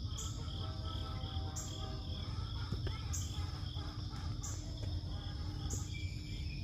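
Crickets and other insects chirping: a steady high trill with evenly repeating pulses, plus a higher chirp every second or so, over a constant low rumble.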